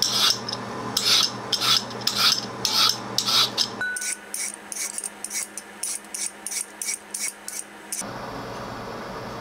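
Vegetable peeler shaving ribbons off a carrot: a rhythmic rasping stroke about twice a second, quickening to about three a second from about four seconds in. The strokes stop about eight seconds in, leaving a steady low hiss.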